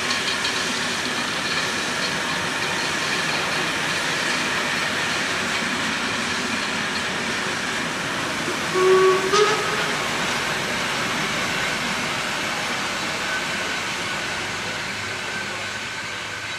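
Steam locomotive hissing steam, with a short whistle in two toots, the second a little higher, about nine seconds in.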